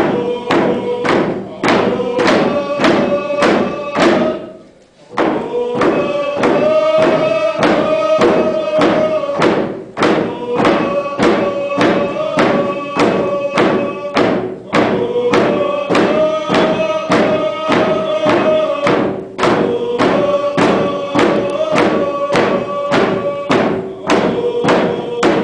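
A group of voices singing a song together to hand drums struck on a steady beat of about two strokes a second. The singing and drumming stop briefly about four to five seconds in, then start again.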